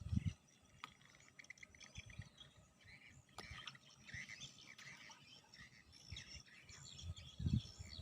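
Small birds chirping and calling, with a brief low thump or rumble at the start and another about seven and a half seconds in.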